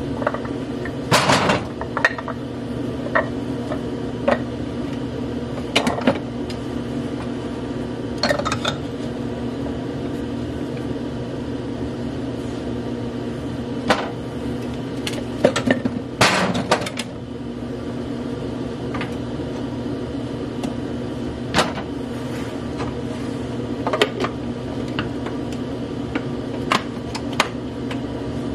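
Plastic food processor bowl and parts being handled, with scattered clacks and knocks at irregular times. Under them runs a steady low hum.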